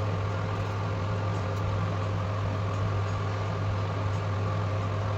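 Electric kitchen appliance motor running steadily with an even low hum.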